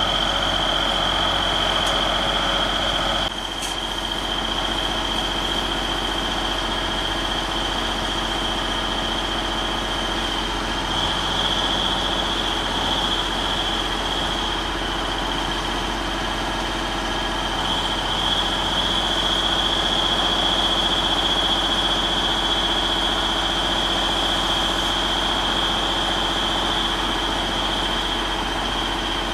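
Diesel engine of an articulating boom lift running steadily while the boom is operated, with a steady high-pitched whine running alongside it. The engine sound thins a little about three seconds in.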